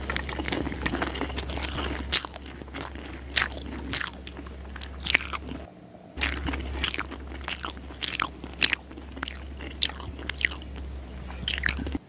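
Close-miked chewing of a hand-fed mouthful of rice and chicken liver curry: a steady string of short mouth clicks and smacks, with a brief pause about halfway through. A steady low hum runs underneath.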